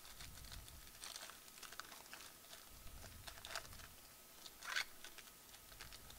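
Foil trading-card pack wrapper crinkling and tearing as it is ripped open, faint, with a louder crackle about five seconds in.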